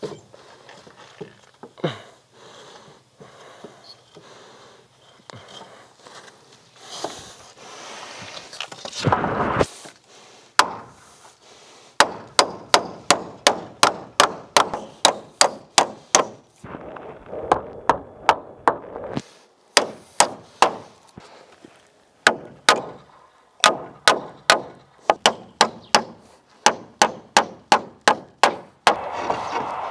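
Hammer striking nails into wooden boards: runs of sharp strikes about two a second, with short pauses between runs. The first part is scattered knocks and scraping.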